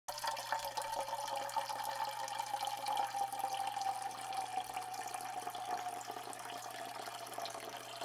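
A thin stream of water from a drinking straw trickling and splashing into the water-filled funnel of a homemade plastic-bottle fountain, with a ringing tone that slowly falls in pitch.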